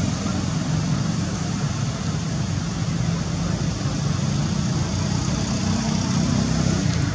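Steady low rumble with a hiss over it, an unbroken background noise with no animal calls standing out.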